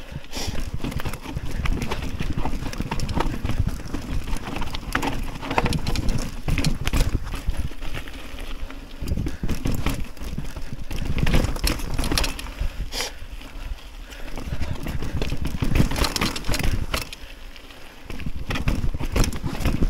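Mountain bike rolling over a rough, rocky trail: a steady run of rattling knocks and clicks over a low rumble of wind on the microphone, easing off briefly a few times.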